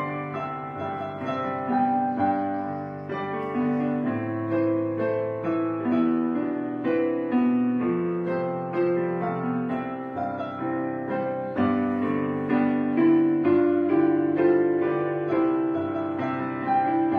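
Background piano music, a run of single notes and chords, each struck and fading.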